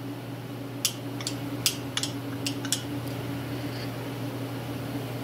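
Worn Cub Cadet clutch plates clicking and clinking as they are handled, with about half a dozen sharp clicks in the first three seconds. A shop heater hums steadily underneath.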